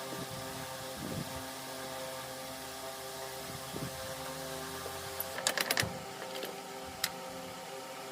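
A steady mechanical hum, like a small motor or engine running. A quick cluster of sharp clicks or taps comes about five and a half seconds in, and a single click a little after seven seconds.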